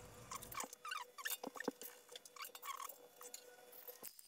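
Faint, irregular small clicks and taps of screws, an Allen key and metal cabinet parts being handled during flat-pack assembly.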